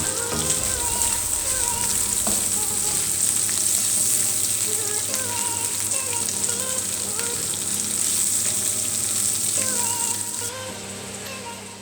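King prawns sizzling steadily in hot oil in a frying pan, the sizzle fading away near the end.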